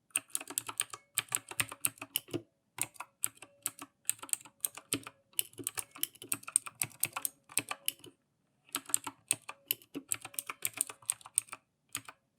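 Typing on a Redragon K552 mechanical keyboard with clicky Outemu blue switches, fast runs of sharp key clicks. The typing stops briefly twice, about two and a half seconds in and again around eight seconds.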